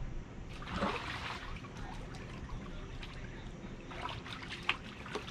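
Water sloshing and trickling in a shallow kiddie pool as a large dog moves in it and is washed, with a louder slosh about a second in and a few small splashes near the end.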